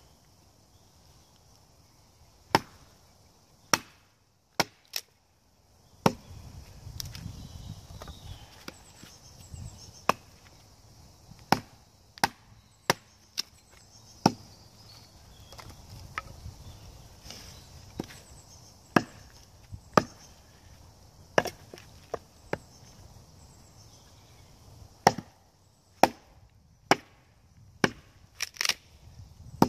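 Sharp wooden knocks and cracks, irregularly spaced about a second apart and sometimes in quick pairs, as sticks are split into thin kindling strips with a knife and a hatchet on a log.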